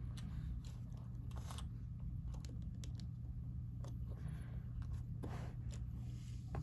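Plastic action figure being handled and repositioned by hand close to the microphone: scattered light clicks and soft rustles over a steady low hum.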